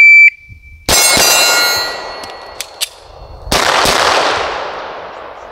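A shot-timer beep, then two quick 9mm shots from a Glock 17, and the steel target rings after them. About two seconds later come two light clicks of the magazine swap. Then two more quick shots come, with no ring from the steel, only a fading echo; the shooter says he missed those second shots.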